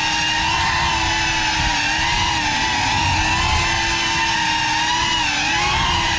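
GEPRC FPV quadcopter's motors and propellers whining steadily, heard from its onboard GoPro, over a low rumble. The pitch wavers and dips briefly twice as the throttle changes, about two and a half seconds in and again near the end.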